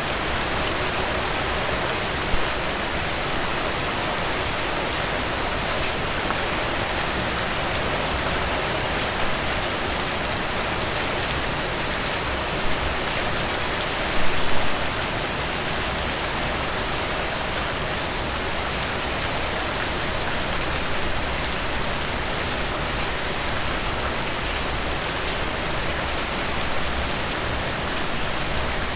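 Steady heavy rain falling on a surface, a dense even hiss with many sharp individual drop impacts and a brief louder patch of drops about halfway through.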